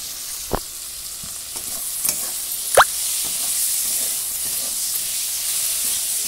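Onions and tomato pieces sizzling in hot oil in an iron kadai, stirred with a metal spatula that clinks against the pan twice, about half a second and nearly three seconds in. The sizzling grows louder after the second clink as the tomatoes are turned into the oil.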